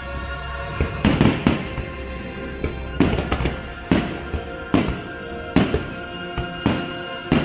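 Fireworks shells bursting in a quick, uneven series of booms, about one or two a second, over the show's soundtrack music.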